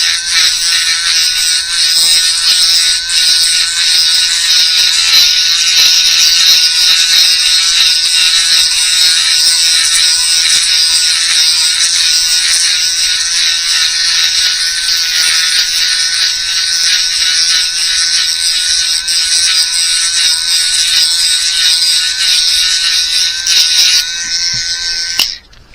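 Dremel rotary tool grinding down a plastic fishing lure body, a steady high-pitched whine that cuts off suddenly near the end as the tool is switched off.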